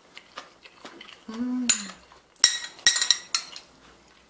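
A metal spoon clinking and scraping against a dish as the fried rice is eaten, a run of sharp clinks, loudest past the middle. A short hummed "mm" of tasting comes about a second and a half in.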